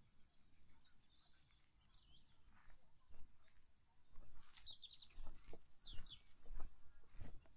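Small songbirds chirping and whistling in short calls. From about halfway, footsteps thud on the path at a walking pace, about two a second, louder than the birds.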